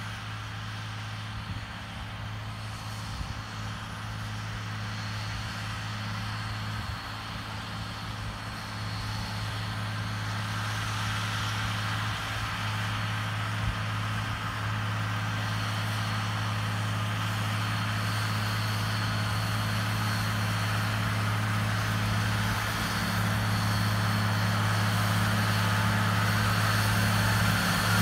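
MTZ-1221 tractor's six-cylinder diesel engine running steadily under load while pulling a disc implement through soil, growing louder as the tractor approaches.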